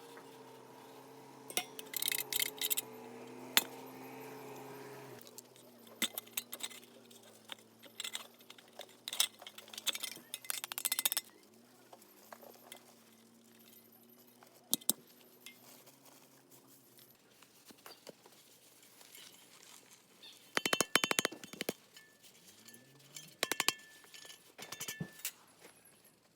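Scattered light clinks and knocks, as of metal or glass being handled, coming in short clusters, over a faint steady hum.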